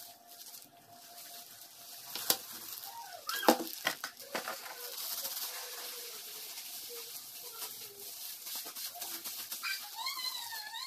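Plastic-gloved hands rubbing and squeezing dye through wet hair, a soft rustling hiss, with a few sharp clicks between about two and four seconds in. Faint wavering high calls in the background, and a short chirping glide near the end.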